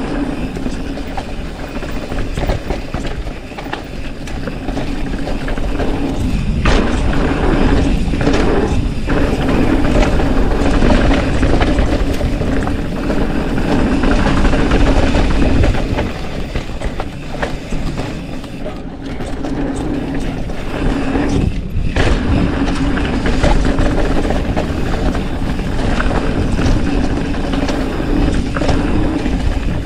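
Mountain bike ridden fast on a dirt trail, heard from a chin-mounted action camera: wind buffeting the microphone with a heavy rumble, tyre noise and the bike rattling and knocking over bumps.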